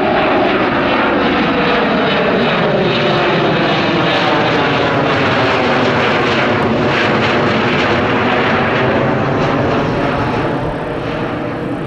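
Sukhoi Superjet 100 airliner's twin SaM146 turbofan engines going by in a display pass: a loud jet roar whose tones slide down in pitch as it passes, fading near the end.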